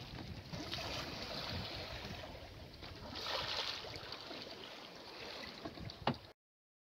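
Wind on the microphone and water washing past the hull of a small sailing yacht under way, swelling for a moment about halfway through, with a few light knocks and a sharper one near the end. Then the sound cuts off abruptly to silence.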